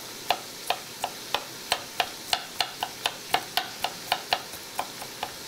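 Kitchen knife chopping garlic cloves on a wooden cutting board: quick, even taps of the blade on the board, about three to four a second.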